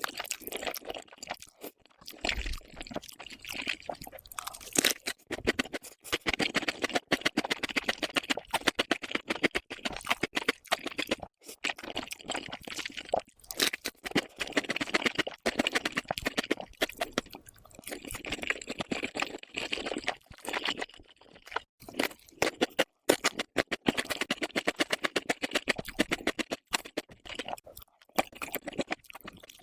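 Close-up chewing and crunching of food, in bouts of rapid crunches broken by short pauses.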